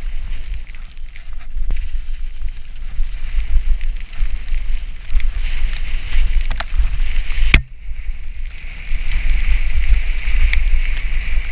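Wind buffeting an action camera's microphone as a mountain bike descends a muddy trail, with a steady rumble and hiss from the ride. A few sharp knocks from the bike jolting over the trail, the loudest about seven and a half seconds in.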